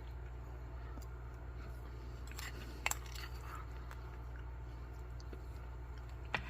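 Faint, sparse clicks and light clinks of eating utensils and food packaging being handled, with one sharper click about three seconds in, over a steady low hum.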